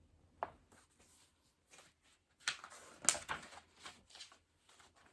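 Paper rustling with a few light handling clicks, clustered about two and a half to three and a half seconds in: a picture-book page being turned.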